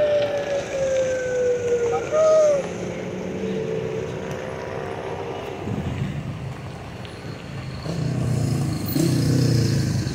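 A wailing, siren-like tone slides up and down in the first two seconds or so. Then the diesel engine of a Nissan Frontier pickup rumbles low and grows louder as the truck drives up close, loudest near the end.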